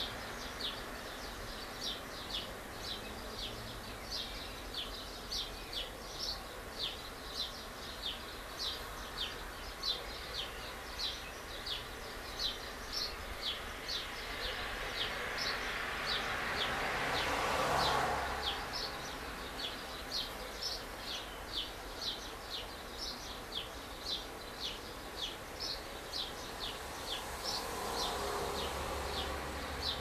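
Steady, rhythmic high chirping, about two short chirps a second, over a background of distant street traffic. Just past the middle a passing vehicle swells up and fades, the loudest moment, and a fainter one passes near the end.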